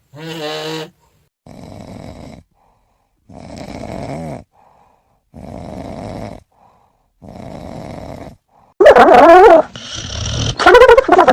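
A sleeping cat snoring, one snore about every two seconds. From about nine seconds in the snores become much louder, with a wavering pitch.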